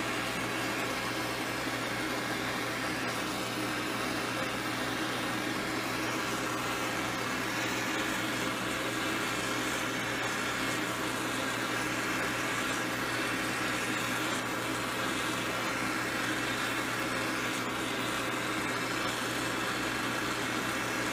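Steady rushing hiss of lit glassworking torch flames, with a low steady hum underneath.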